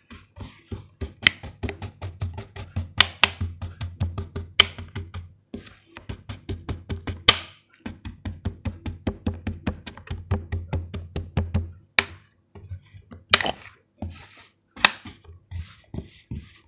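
Kitchen knife chopping rapidly through kinetic sand against a board: about six quick taps a second, each with a soft thud, and now and then a sharper click as the blade meets the board. The chopping slows after about twelve seconds.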